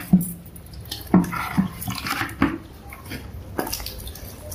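Water splashing out of a tipped plastic bucket onto a wet concrete floor, with about five irregular wet slaps and splashes.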